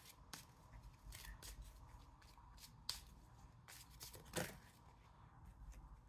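Tarot deck being shuffled by hand: a run of faint, quick card clicks and flicks, with one louder brush of cards a little past four seconds in.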